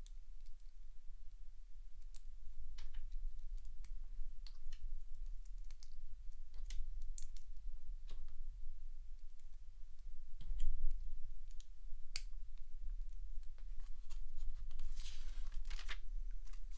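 Plastic LEGO pieces being handled and pressed together: scattered, irregular small clicks, with a brief rustle near the end, over a steady low hum.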